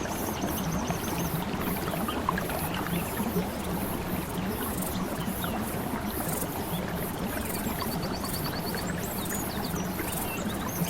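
Steady rush of flowing water, with short high chirping trills about a second in and again later.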